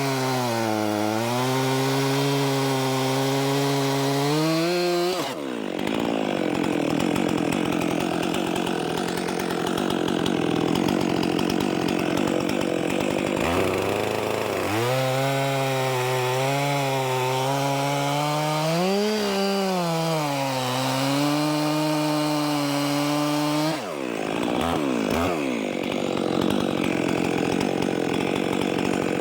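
Stihl MS 400 C two-stroke chainsaw running hard throughout while bucking firewood logs. Its engine pitch sags and recovers as it works through the wood, with a couple of brief dips in between.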